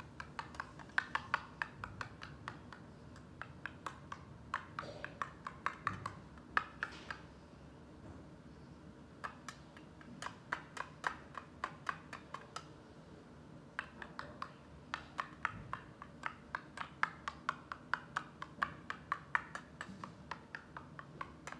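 Steel spoon clinking against a small stainless steel bowl as mango pieces are mashed, in quick runs of sharp clicks several a second, broken by two short pauses.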